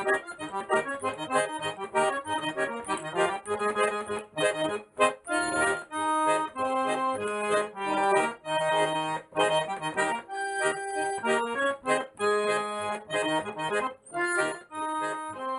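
Accordion playing a lively melody over sustained chords, with no singing.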